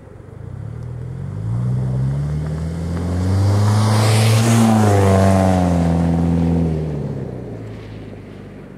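Subaru Forester XT's turbocharged flat-four, running through an aftermarket exhaust with Nameless 5-inch mufflers and a resonated STI midpipe, accelerating: the exhaust note climbs in pitch for a few seconds and is loudest around the middle. It then drops in pitch and fades as the car lets off and moves away.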